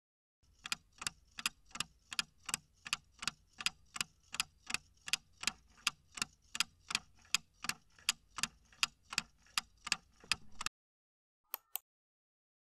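Clock-ticking sound effect for a quiz countdown timer, evenly spaced at about three ticks a second. It stops suddenly, then two quick clicks follow.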